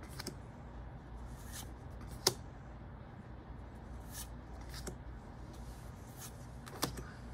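Pokémon trading cards being slid one at a time through a stack in the hand, each move a short papery swish or click, a handful of times, the sharpest a little over two seconds in; a low steady hum sits underneath.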